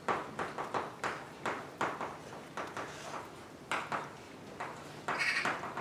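Chalk writing on a blackboard: quick, uneven taps and short scratches as letters are written, with a longer scratchy stroke near the end.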